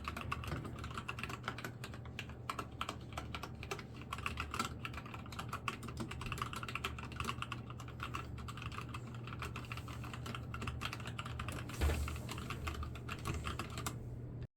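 Mechanical keyboard being typed on quickly and continuously, a dense stream of key clicks, with one heavier thud about twelve seconds in; the typing cuts off abruptly just before the end.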